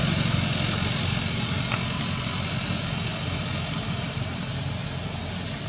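Steady low rumble of a motor vehicle engine running close by, slowly fading away.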